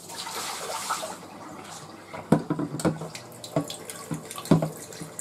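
Frigidaire refrigerator's door water dispenser running into a measuring pitcher: a hissing rush at first, then sputtering in four or five sharp spurts. The sputter is air being purged from the system after a new water filter was fitted.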